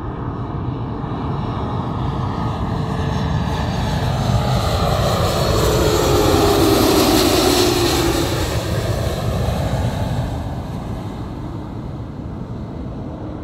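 Airbus A330-243's twin Rolls-Royce Trent 700 turbofans passing by on approach with the gear down. The jet noise builds to a peak about halfway through, then fades, and the engine whine drops in pitch as the airliner goes past.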